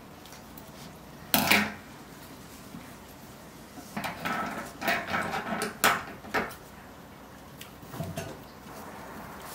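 Knocks and clatter on a tabletop as scissors and a ribbon spool are handled: one loud thump about a second and a half in, rustling with several sharp clicks midway, and a softer knock near the end.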